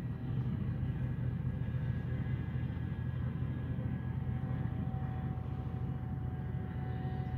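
Steady low engine drone from a two-masted wooden mini cruise ship manoeuvring slowly, with a faint thin whine above the rumble.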